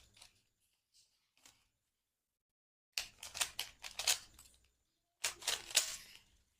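Rubik's Cube being turned by hand: plastic layers clicking as they rotate. A few single clicks come first, then two quick runs of rapid turns, about three seconds in and again about five seconds in.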